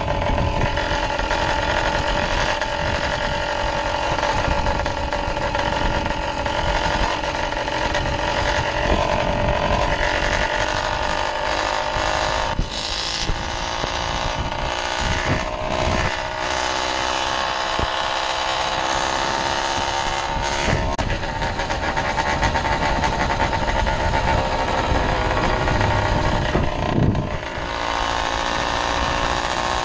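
OZ case-reed two-stroke bicycle engine, not yet tuned and breathing through an MZ65 expansion pipe, running hard at riding speed with a steady buzzing note, with wind rushing over the microphone. The engine note dips briefly twice, about halfway through and near the end.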